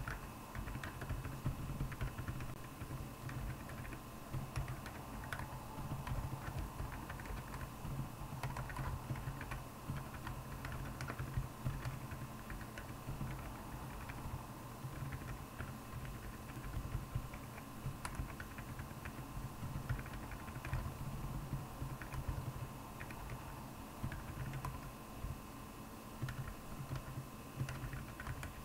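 Typing on a Royal Kludge R75 mechanical keyboard fitted with Akko Penguin silent tactile switches: a continuous stream of soft, irregular keystrokes over a faint steady hum.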